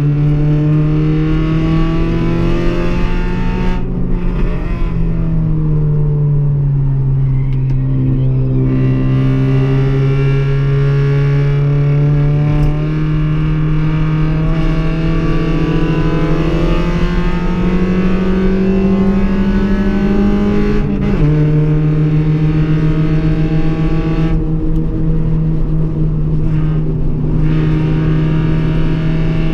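Car engine driven hard on a race track. Its pitch climbs slowly over about fifteen seconds and then drops suddenly about twenty-one seconds in.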